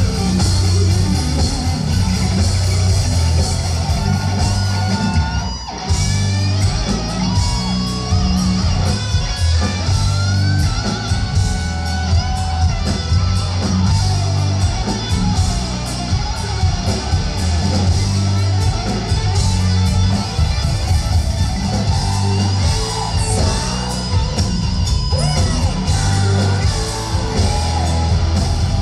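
Heavy metal band playing live in a concert hall: electric guitars over bass and drums, with a brief break about five and a half seconds in.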